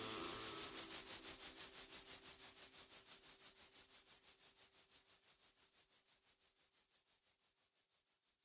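Tail of background electronic music dying away: a held note under a rapid, even pulsing that fades out over about seven seconds.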